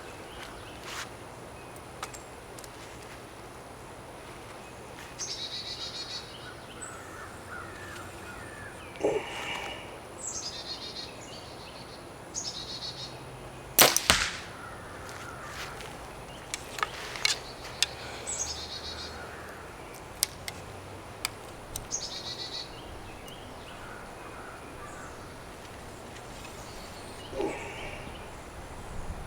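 A compound bow fires once about halfway through, a single sharp crack of the string, while birds chirp repeatedly around it.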